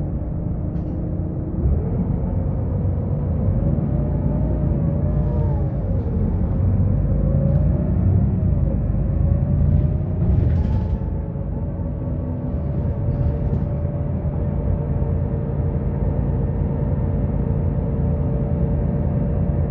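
Solaris Urbino 12 III city bus heard from inside the passenger cabin while driving: a steady low rumble of engine and road. Over it a whining tone rises and wavers in pitch, then holds steady. A brief hiss comes about halfway through.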